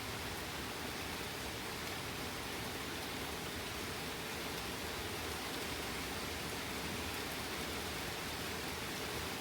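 Steady, heavy rain falling, an even hiss with no thunder clap standing out.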